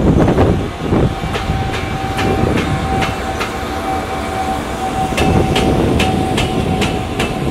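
Wheels of a passing EF210 electric locomotive clicking over rail joints at low speed, in two runs of regular clicks about two and a half a second apart, over a continuous rumble. A thin steady whine runs along with them from about a second in.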